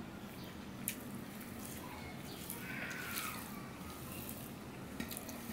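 Fingers mixing rice with chopped onion on a stainless-steel plate: soft squishing with a few light clicks of fingers against the steel.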